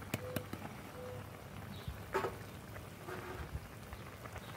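A few light clicks and taps as drained whole kernel corn is shaken from a can into a cast iron chicken fryer, then one louder clunk about two seconds in, over a low steady background hum.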